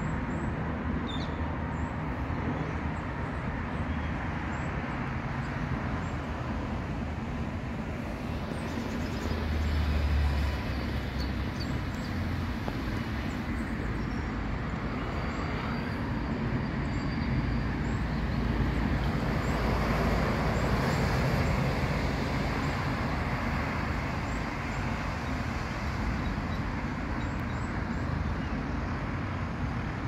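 City park ambience: a steady rumble of distant road traffic, with faint short high bird chirps scattered through it.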